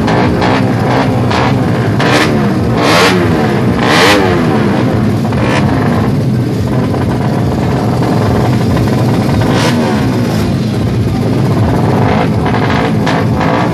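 Drag-race motorcycles, a two-stroke Kawasaki Ninja R and a Suzuki Satria F, held at the start line with their engines revved repeatedly, the revs rising and falling with sharp blips about two to four seconds in.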